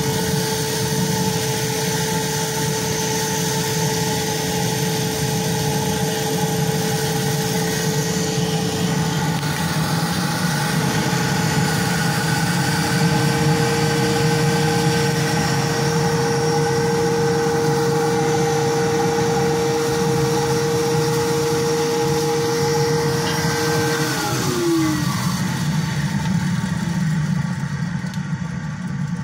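Blower running steadily, forcing air down a pipe into a wood-fired furnace built from an LPG bottle, with the rush of the forced-draft fire. Near the end the blower's whine drops in pitch as it is turned down to idle.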